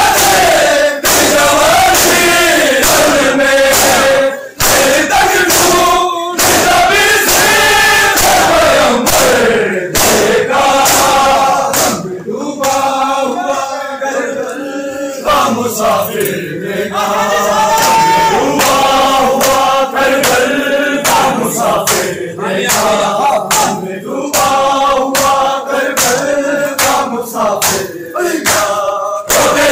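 Men's voices singing a Punjabi noha (Shia lament), joined by a crowd of men striking their chests in unison in a steady rhythm (matam).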